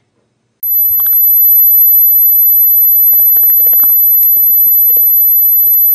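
Sound Grenade app on an iPod Touch emitting one loud, steady, very high-pitched tone that switches on about half a second in, with a low hum underneath.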